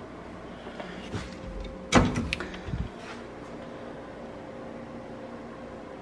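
Wooden kitchen cabinet doors opened, with a sharp clack about two seconds in followed by a few lighter knocks and clicks of the doors and hinges. A faint steady hum runs underneath.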